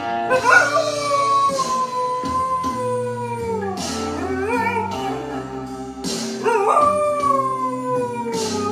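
Dog howling along to music: two long howls, each sliding slowly down in pitch, the second starting about six and a half seconds in.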